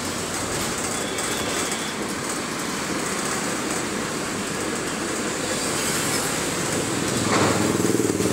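Steady running noise of a moving city bus heard from inside: engine and road noise, growing louder near the end.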